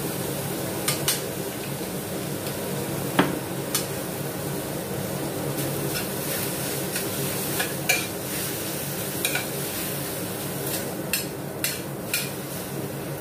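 Metal spatula scraping and knocking against a stainless steel wok as sliced beef and onion are stir-fried, giving about a dozen sharp clicks. A light sizzle and a steady hum run underneath.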